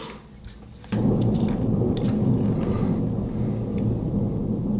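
Thunder rumbling, starting suddenly about a second in and rolling on steadily, with a few faint clicks over it.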